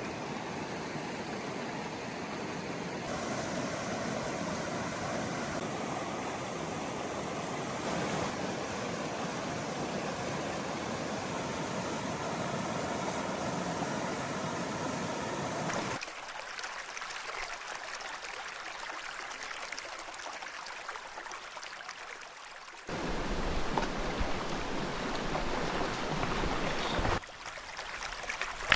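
River water running over rocks: a steady rushing and burbling. The sound changes abruptly twice, about halfway through and again a few seconds later, as the shots change.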